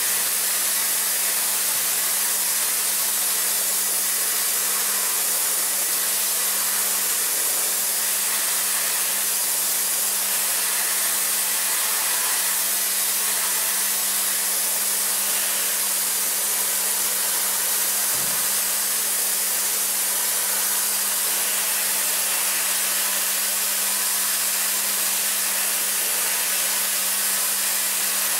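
DMG MORI CMX1100V vertical machining center high-speed milling a metal block with an end mill: a steady hiss with a steady hum underneath.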